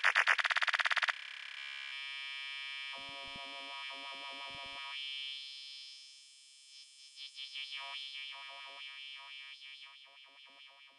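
Electronic music outro. A fast, loud stuttering synth pulse cuts off about a second in. What is left are held high synth tones and scattered short plucked notes, fading out.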